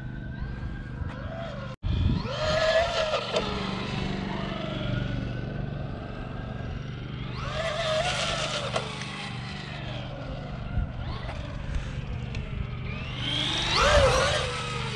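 Brushless electric motor of a Traxxas Rustler 4x4 VXL RC truck on a 3S LiPo whining up and down in pitch as it speeds up and slows. It is loudest in three swells, about two, eight and fourteen seconds in, and the sound cuts out for an instant just before the first.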